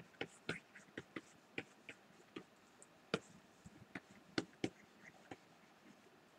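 Faint, irregular light taps and clicks of a stylus pen on a graphics tablet during quick painting strokes, a dozen or so, the sharpest about three seconds in and twice more around four and a half seconds.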